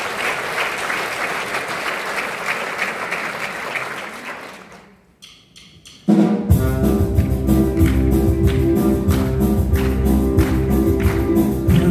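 Audience applauding, dying away about four to five seconds in; after a brief hush with a few soft clicks, an orchestra with brass, strings and drums starts a loud number about six and a half seconds in.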